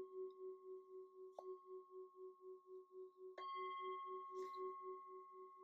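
Singing bowl ringing quietly with a slow, wavering pulse. It is struck lightly again about a second and a half in and more firmly at about three and a half seconds.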